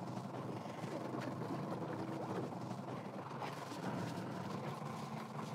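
Steady wind and sea noise on an open fishing boat, with a faint, steady engine hum underneath.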